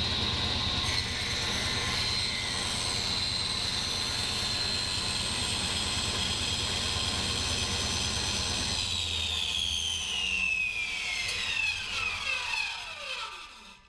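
Table saw running at full speed with a steady high whine while a block of alder is pushed across the thin-kerf blade. It is switched off about two-thirds of the way through, and its whine falls steadily as the blade spins down.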